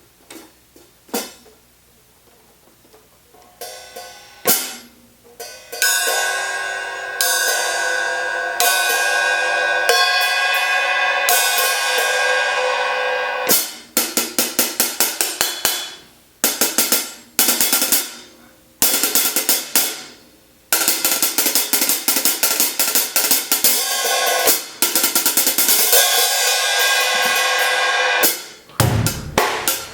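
Zildjian 13-inch A Mastersound hi-hat cymbals played. A few single strokes come first; from about six seconds in there is a sustained, washy open-hat pattern, then runs of quick strokes alternate with longer ringing passages.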